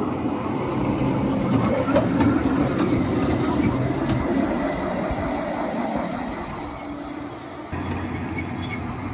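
A 7¼ inch gauge battery-electric miniature locomotive running along the track: a steady rumble of its steel wheels on the rails, with a few clicks.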